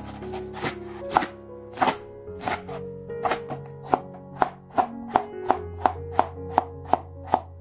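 Kitchen knife chopping aged kimchi on a wooden cutting board: sharp knocks of the blade on the board at a steady pace, quickening to about three a second in the second half, over background music.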